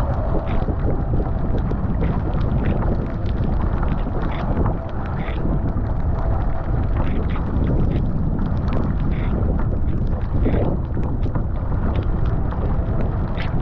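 Heavy wind buffeting on the microphone over water rushing past a Fenn Elite S surfski hull, with the paddle blade splashing into the water about once a second as the paddler strokes.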